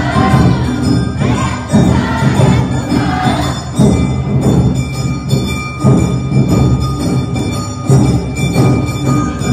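Awa Odori festival music: drums beating a steady rhythm, with a ringing metal gong and voices joining in.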